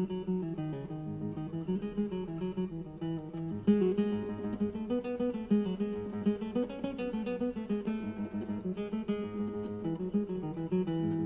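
Background music: acoustic guitar picked and strummed in a flamenco style.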